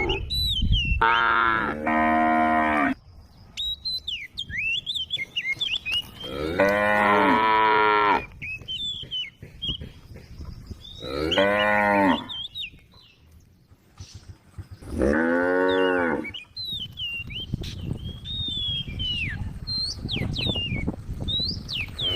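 Cows mooing: four long, loud moos a few seconds apart, the first dropping in pitch partway through.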